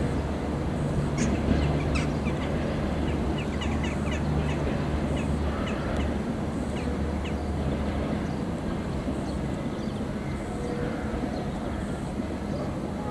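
Passenger train hauled by a ChS7 electric locomotive moving through the station: a steady low rumble and hum that eases off about two-thirds of the way through, with scattered short high squeaks.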